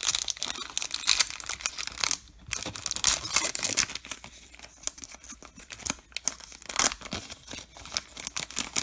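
A foil baseball card pack being torn open by hand, its metallised wrapper crackling and crinkling, heaviest in the first few seconds. Lighter crinkles and clicks follow as the cards are slid out of the wrapper.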